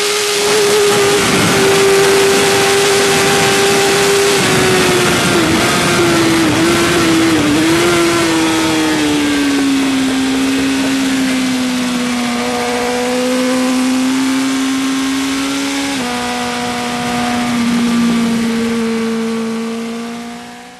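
Onboard sound of a Suzuki GSX-R1000 K5 superbike's inline-four engine running hard over wind rush. Its pitch falls in steps through the middle and then holds lower, with a small jump near the three-quarter mark, and the sound fades out at the very end.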